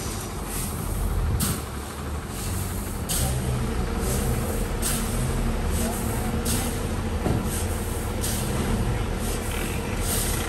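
Water tanker truck engine running steadily, with a short hiss repeating about every second and a half to two seconds.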